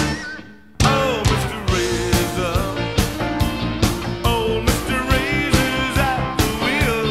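Rock song with a sung vocal over a steady drum beat. The music drops out for about half a second near the start, then comes straight back in.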